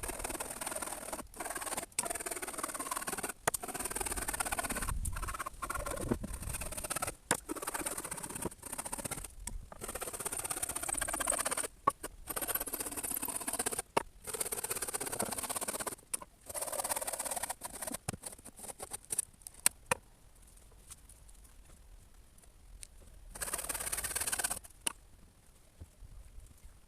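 Gravel being shovelled and spread: a string of short scraping, pattering stretches that stop and start abruptly, with a quieter stretch in the last third.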